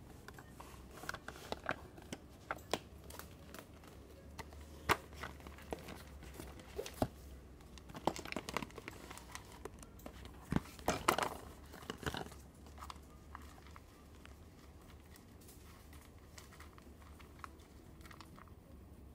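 A hamster rummaging and burrowing in torn toilet-paper bedding: irregular crinkling, rustling and tearing of paper, busiest about eight to twelve seconds in, then fading to near stillness.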